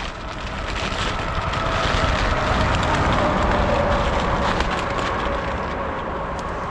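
A road vehicle passing by: tyre and engine noise swells to its loudest about two to four seconds in and then slowly fades, with a faint whine that drops a little in pitch as it goes.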